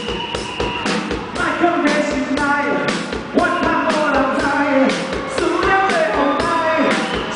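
Live band playing a rock-style song, a singer's voice over a steady drum beat.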